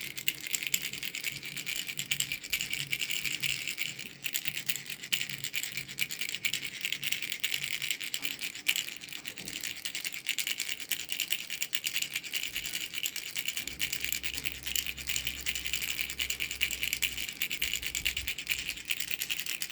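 Baby rattle shaken continuously, a fast, dense rattling with a short lull about four seconds in.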